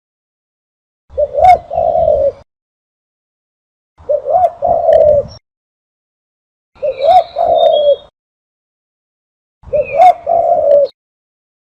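Recorded dove call used as a hunting lure: four phrases of quick, pitched cooing notes, each about a second and a half long and about three seconds apart, with dead silence between them. Faint higher chirps sound along with some phrases.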